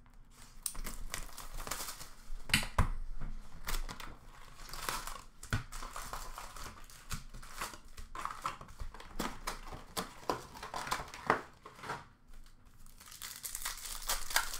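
Hockey card packs being torn open by hand: wrappers crinkling and ripping, with a sharp tearing snap every so often.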